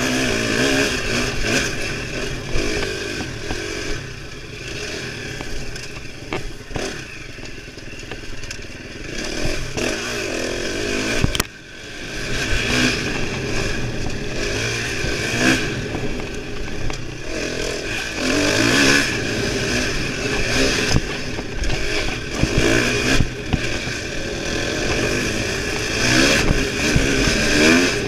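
Dirt bike engine at speed on a trail, revving up and down as the throttle is opened and closed. A sharp knock comes about eleven seconds in, where the engine sound briefly drops away before picking up again.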